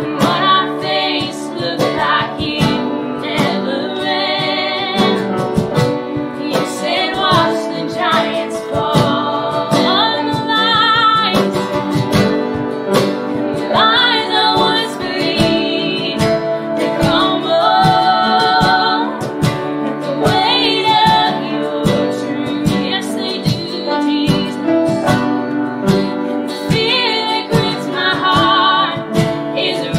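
A woman singing a worship song to acoustic guitar, cajon and piano, the cajon keeping a steady beat.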